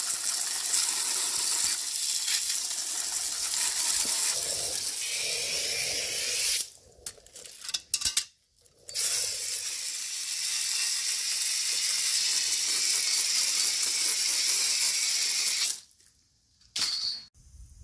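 Garden hose pistol-grip spray nozzle blasting water onto a plastic condenser fan shroud, a steady hiss. It cuts off after about seven seconds with a couple of short spurts, runs again for about seven seconds, then stops, with one last short spurt near the end.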